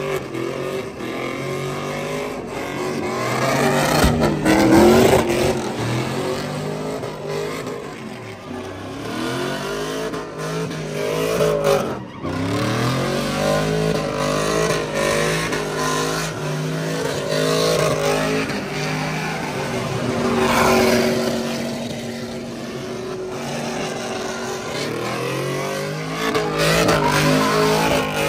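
Pickup truck engines revving and driving, the engine note rising and falling several times.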